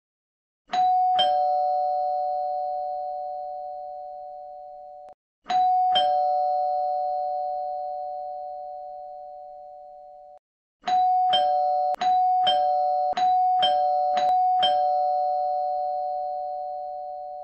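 Two-tone ding-dong doorbell chime, a high note then a lower one, each ringing out slowly. It sounds once about a second in and again around six seconds, then rings four times in quick succession.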